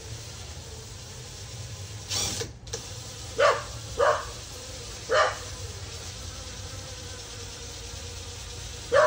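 Dog barking: a few short, sharp barks about three and a half, four and five seconds in, with another bark right at the end. A brief hiss comes just before them, about two seconds in.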